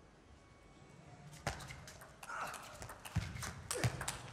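Table tennis ball being served and rallied: a quiet moment, then a sharp click about a second and a half in, then more clicks of the celluloid ball off rubber bats and the table, mixed with heavy thuds of players' feet stamping on the floor.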